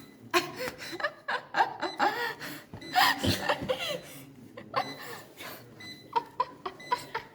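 People laughing hard, in bursts, with a few short beeps near the end.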